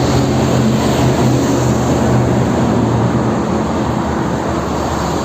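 Motorcycle running steadily at road speed: a low, even engine hum under a constant rush of wind and road noise.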